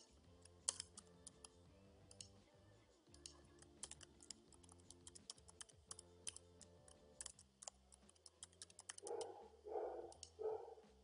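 Typing on a computer keyboard: a run of quick, irregular, faint key clicks.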